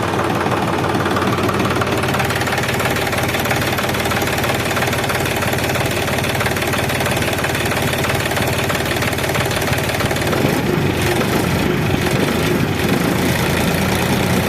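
Tractor engine running steadily, with an even low drone.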